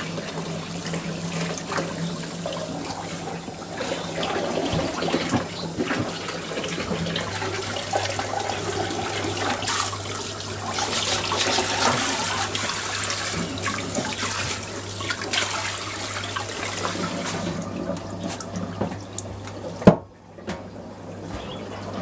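Water running from a hose and splashing over a poodle's wet coat into a plastic tub, as the dog is rinsed. Near the end a single sharp click, after which the running water is quieter.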